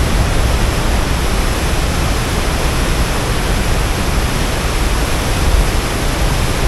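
Steady rush of turbulent whitewater pouring out of a dam spillway gate.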